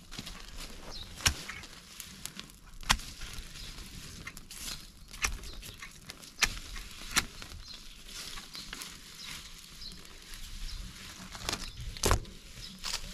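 A fire of dry leaves and branches crackling, with sharp snaps at irregular intervals over a faint hiss.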